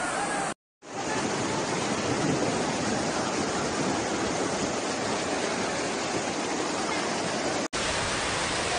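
Floodwater rushing in a steady, even torrent. The sound breaks off into silence for about a third of a second just after the start and drops out for an instant near the end.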